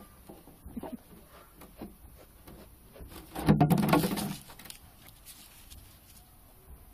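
Bristle brush stroking a Welsh Corgi's coat, with faint scratchy strokes, then a louder rustle and bump lasting about a second, a little past three seconds in.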